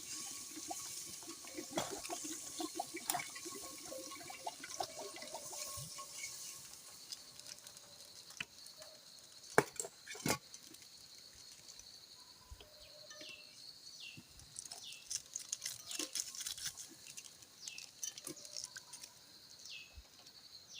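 Spices and garlic frying in hot oil, a high sizzling hiss strongest in the first few seconds, with scattered spoon-on-pan clicks and two sharp knocks near the middle. In the second half, a run of short falling chirps sounds over it.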